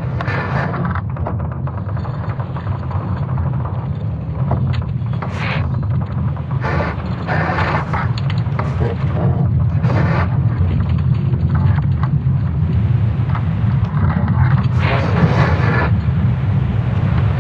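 Data sonification of Earth's magnetic field during the Laschamp reversal: a steady deep rumble, built from natural recordings such as creaking wood and falling rocks. Short rushing, scraping swells of higher noise break over it every few seconds, and the whole grows slowly louder.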